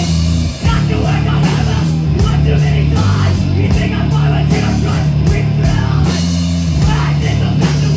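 Live punk rock band playing loudly: distorted electric guitar, bass guitar and drum kit, with a momentary break about half a second in.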